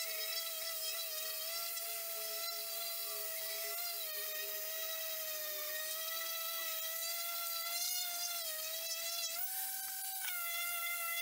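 Electric random orbital sander running on rough pine boards, a steady high motor whine that wavers a little in pitch and rises briefly near the end.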